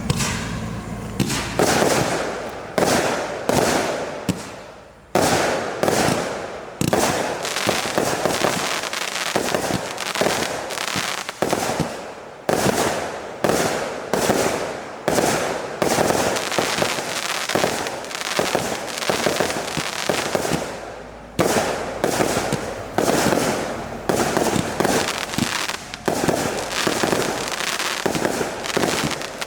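A 99-shot, 0.8-inch consumer firework cake firing: a steady series of launch thumps and aerial bursts, several a second, each trailing off in crackle.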